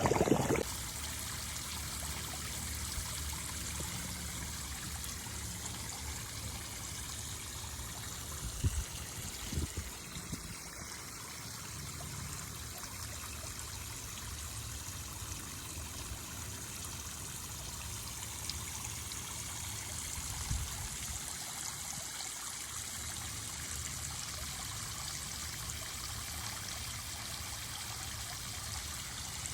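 Steady trickle of running water, with a couple of brief low knocks about nine seconds in.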